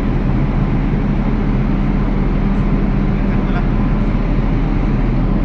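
An engine running at a steady speed, giving a constant low hum over a wide, even noise.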